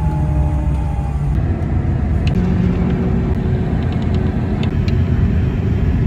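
Motor vehicle running on the road, a steady low rumble with faint humming tones; its character changes abruptly about a second and a half in, and a few light clicks come later.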